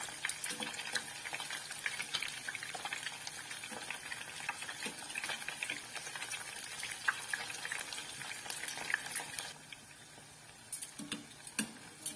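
Breaded chicken skin deep-frying in hot oil, a steady crackling sizzle with small pops, and metal tongs turning the pieces against the pot. The sizzle drops noticeably quieter about nine and a half seconds in.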